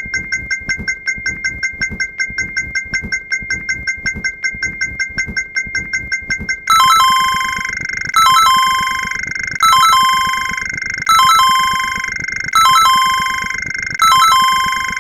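Electronic ding sound effect repeated rapidly, about six strikes a second. About two-thirds of the way in, the dings blur into a continuous ringing tone, with a higher chime figure, like a ringtone, repeating about every second and a half over it.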